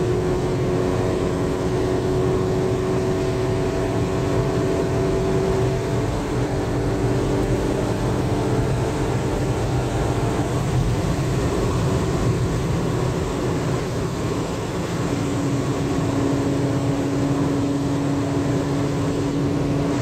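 VW Golf 8 GTI Clubsport's 2.0-litre turbocharged four-cylinder running at a steady cruise: a constant engine drone under even road and wind noise, its pitch holding nearly level with only slight drifts.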